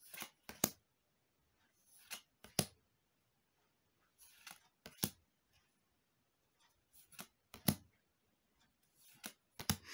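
Magic: The Gathering trading cards being flicked through one at a time, each card slid off the stack and laid on the front with a short pair of papery flicks, about every two and a half seconds.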